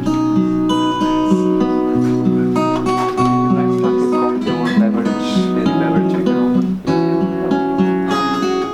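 Acoustic guitar played as an instrumental break in a folk song, with plucked and strummed chords ringing on, changing every half second or so.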